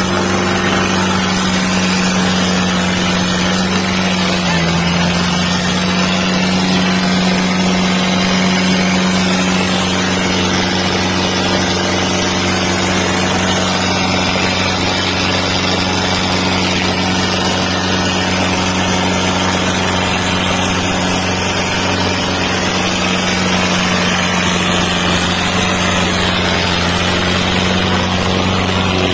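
55 HP tractor diesel engine running hard at a steady, held pitch, straining under load in a tractor tug-of-war pull. The pitch dips slightly about four seconds in.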